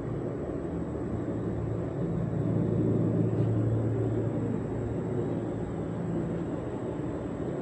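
A low engine hum that swells a couple of seconds in and fades again over the following few seconds.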